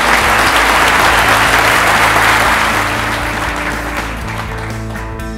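Audience applauding, loudest early on and fading away about four seconds in, over steady background music.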